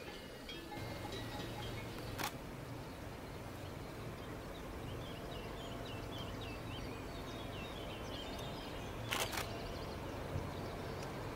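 Quiet outdoor ambience with a faint steady low hum. A small bird chirps a short run of notes in the middle, and there are sharp clicks about two seconds in and a quick pair near the end.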